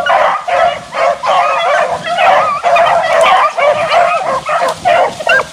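A pack of beagles baying together as they run a rabbit, several overlapping voices rising and falling without a break: the hounds are on the rabbit's track in full cry.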